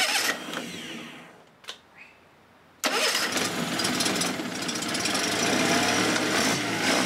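Honda 15 hp four-stroke outboard motor fires briefly at the start and dies away. About three seconds in it catches and runs steadily.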